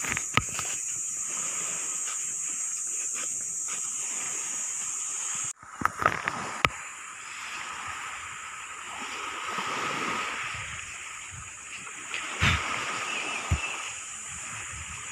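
Small waves washing onto a sandy beach, swelling and easing, with a few sharp knocks. For about the first five seconds a steady high-pitched hiss runs instead, cutting off suddenly.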